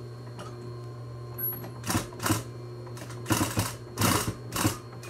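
Industrial sewing machine stitching through layered cotton and felt in about five short runs, starting about two seconds in, as the seam is guided around a curve. Between runs its motor keeps up a steady low hum.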